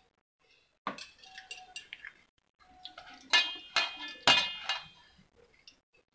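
Clinking of a steel plate as hands pack masala into red chillies: a sharp click about a second in, light scraping and ticks, then two louder clinks with a short metallic ring past the middle.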